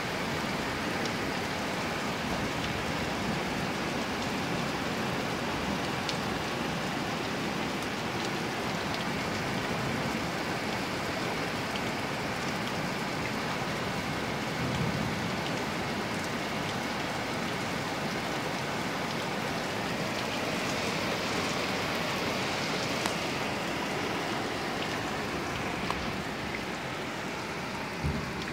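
Rain falling steadily and hard, a dense even hiss of drops hitting the street and nearby surfaces, with a few sharp ticks in the last few seconds.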